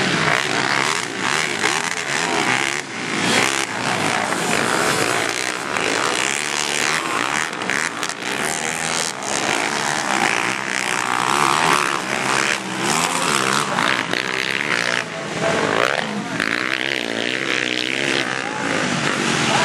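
Racing quad engines revving up and down, their pitch rising and falling continuously as the ATVs accelerate and brake around a dirt track.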